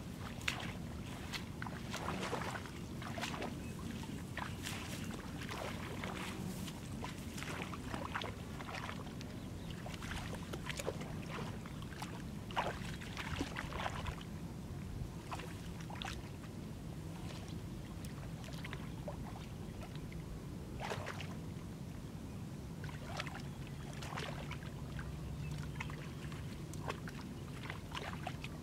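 Water splashing and dripping in short, irregular bursts as a cast net is hauled through shallow muddy pond water and handled, over a steady low background noise.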